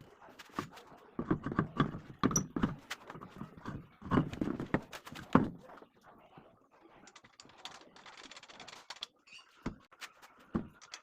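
A quick run of knocks and clatters, as of tools and parts being handled during a car tyre change, for about five seconds with the loudest near the middle. After that comes a faint hiss, then two single knocks near the end.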